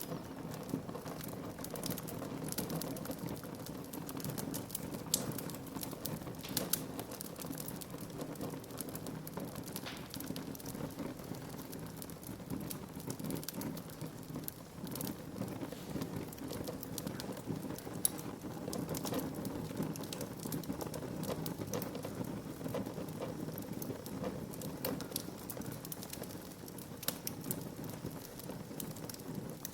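Wood fire crackling in a fireplace: a steady low rush of flames under dense small snaps, with a few louder pops, the sharpest about 18 seconds in.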